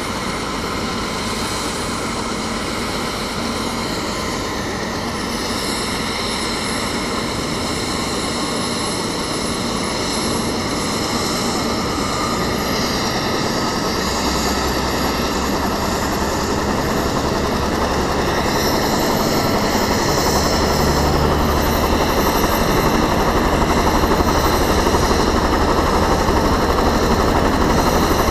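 Turbine helicopter running on the ground, a steady high whine over the rotor beat. It grows gradually louder, with the low rotor beat strengthening about halfway through.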